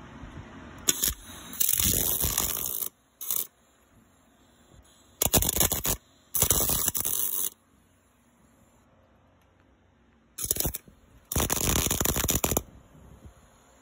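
Wire-feed welder arc on steel laying short tack or stitch welds: several bursts of crackling sizzle, each about a second long or shorter, with quiet pauses between them.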